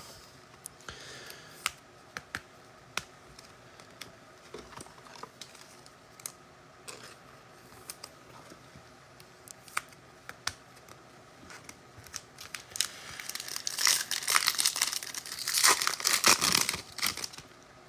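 Trading card handling: scattered light taps and clicks of cards being moved. About thirteen seconds in, a foil card pack wrapper is torn open and crinkled for several seconds.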